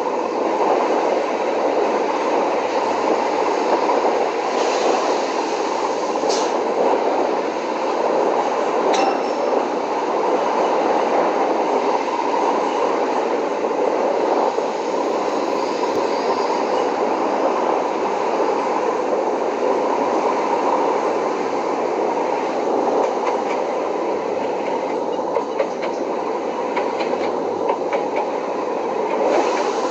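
Train running along the track: a steady rolling noise with a couple of brief sharp clicks about six and nine seconds in.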